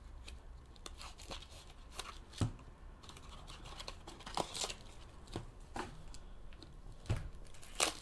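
Trading-card boxes and their packaging being handled on a table: scattered light taps and clicks with rustling and some tearing of wrapping.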